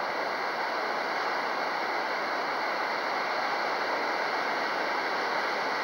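Steady rushing noise of strong wind, even and unbroken.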